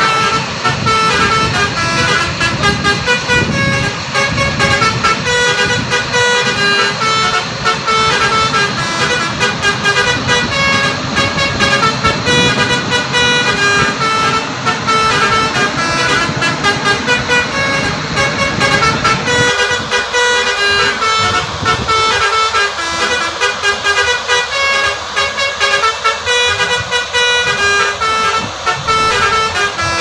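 Indonesian bus 'telolet' multi-tone horns playing quick melodic toots over and over, with a low vehicle rumble underneath that drops away about two-thirds of the way through.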